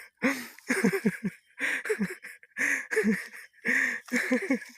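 A person's voice making short, pitched non-word sounds in repeated bursts, about one a second.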